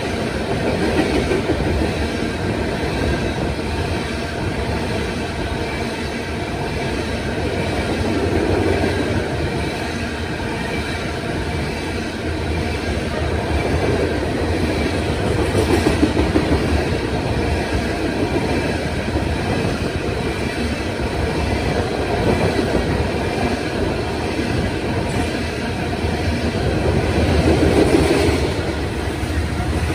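Covered hopper cars of a freight grain train rolling past at speed: a steady rumble and clatter of steel wheels on the rails that swells and eases as the cars go by.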